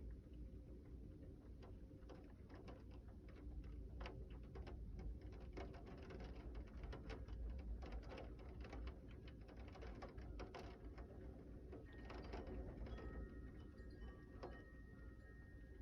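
Rain falling and dripping in scattered sharp ticks over a faint low steady rumble, the ticks thickest in the middle. Some seconds from the end a faint high steady tone joins.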